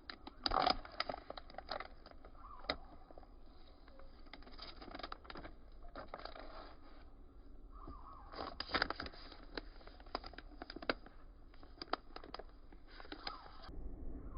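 Hands opening and handling a perfume box and its packaging: a run of sharp clicks and taps over rustling, in two busy spells with a short lull a little past the middle.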